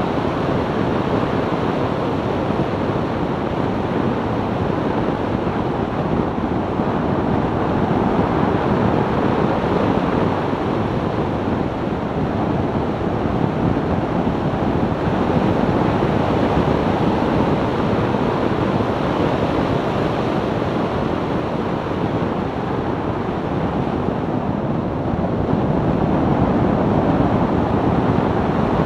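Steady rush of wind buffeting the microphone over tyre and road noise from a 2002 BMW E46 330Ci cruising, rising and falling a little with speed.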